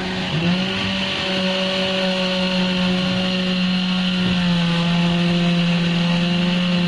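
Construction machinery running steadily during a concrete pour: a constant motor hum with a high hiss, its pitch dipping briefly just after the start and stepping down slightly a little past halfway.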